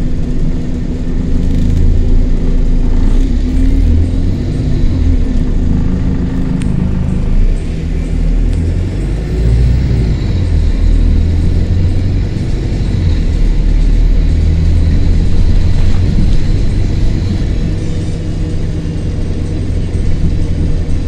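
Diesel engine and drivetrain of a single-deck bus, heard from inside the saloon while it drives along. It is a steady low running note that drops and changes about seven and a half seconds in, then builds again.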